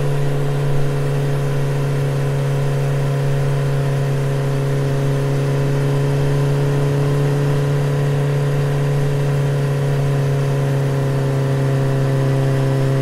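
A small electric motor humming steadily at one even pitch.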